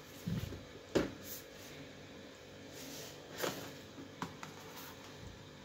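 Cardboard product boxes being handled and moved: a low thump just after the start, a sharp knock about a second in, then a rustle and a couple of light clicks.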